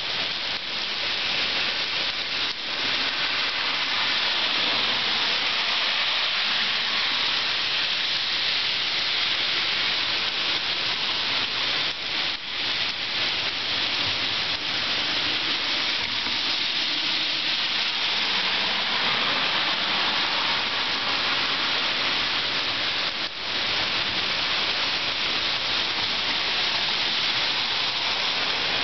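Heavy rain pouring steadily, a dense, even hiss of rain falling on the street, sidewalk and roofs.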